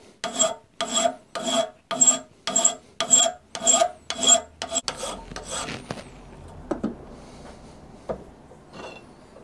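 Hand file scraping across aluminium angle clamped in a bench vise, in steady back-and-forth strokes about two a second; the filing stops about five seconds in, followed by a few light knocks.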